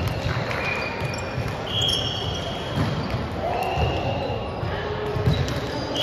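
Sneakers squeaking on a hardwood sports-hall court during indoor volleyball play: several short high-pitched chirps, with low thuds of feet and a few calls from players.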